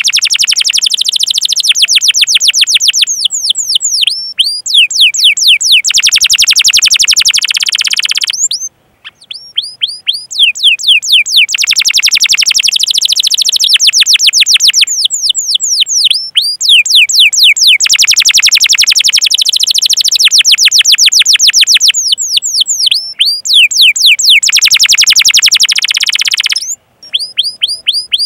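Domestic canary singing a long, loud song of fast rolling trills and runs of repeated downward-sweeping chirps, broken only by two brief pauses, the first about nine seconds in.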